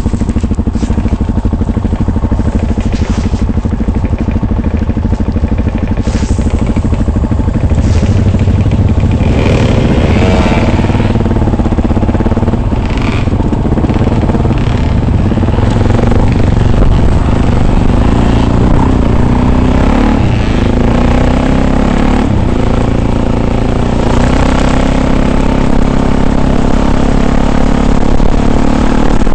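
Off-road vehicle's engine running steadily while driving a rough track, with scattered knocks and rattles from the bumpy ground, the busiest stretch about ten seconds in.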